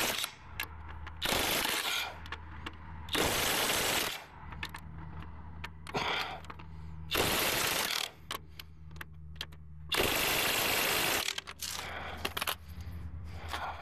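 Paint spraying in short hissing bursts, five in all, each about a second long, the last one a little longer. A steady low hum runs underneath, with small clicks between the bursts.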